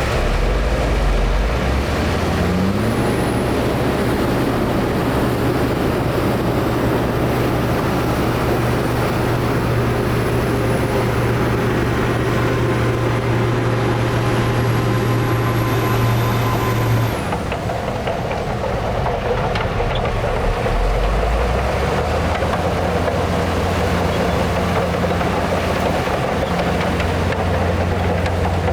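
Heavy diesel earthmoving machinery running hard. The engine note rises about three seconds in and holds steady, with a faint high whine climbing slowly. It drops off abruptly about two-thirds of the way through, then settles back to a lower steady run.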